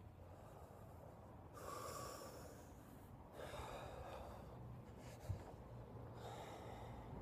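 A man breathing deeply and forcefully in a breathing exercise: three long, rushing breaths, with a single sharp click between the second and third.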